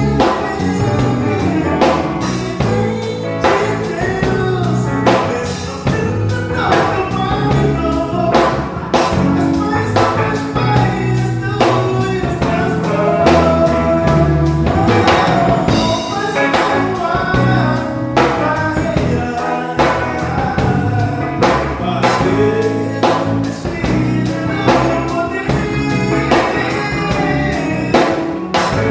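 A band playing a song: a singing voice over drum kit and guitar, with a steady beat.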